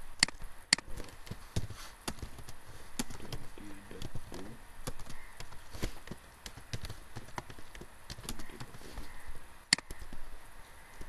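Computer mouse clicks and keyboard key taps: a couple of sharp clicks just after the start and one loud click near the end, with lighter, irregular keystrokes in between as numbers are typed.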